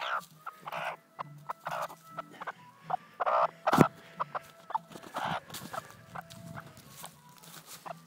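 A broody hen giving short raspy calls about once a second, with one sharp knock about four seconds in.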